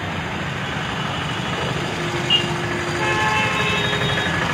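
Steady rumble of heavy machinery and road traffic. A few faint ringing tones join about three seconds in.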